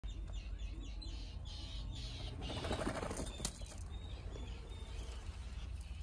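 Terns calling over a seabird nesting colony: many sharp, high calls in quick succession, with a louder rustling flurry about halfway through and a steady low wind rumble on the microphone.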